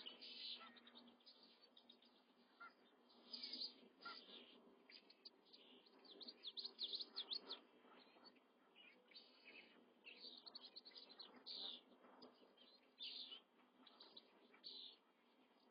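Crane chicks peeping: many short, high chirps, some alone and some in quick runs, over a faint steady background.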